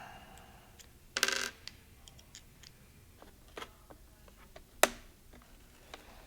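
Small plastic clicks and ticks of a laptop's bottom cover being pried off its clips. There is a short burst of rapid clicking about a second in, and a single sharp snap about five seconds in.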